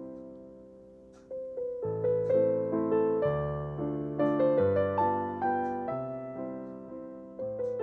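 Solo piano playing slowly: a held chord fades over the first second and a half, then notes and chords struck at a gentle, even pace.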